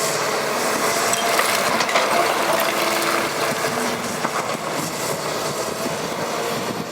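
Cat 319D excavator working, its engine and a steady tone running under a dense clatter of metallic clinks and crunching.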